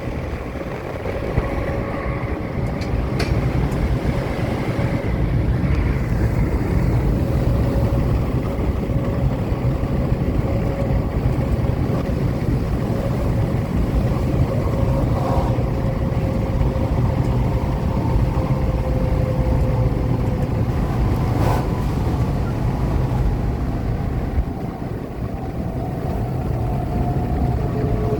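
A train running past, heard as a steady low rumble with a long drawn-out whine over it that sinks slowly in pitch. A second, higher whine comes in near the end.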